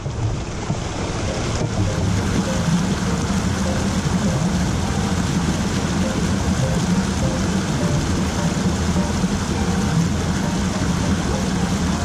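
Mountain stream water rushing over rocks, a steady, loud rush.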